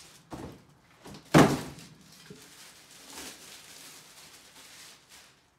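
A single loud thunk about a second and a half in, with a few quieter knocks and a soft rustling of handling noise after it.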